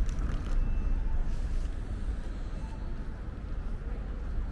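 Outdoor city street ambience: a steady low rumble of traffic and wind, easing slightly over the few seconds.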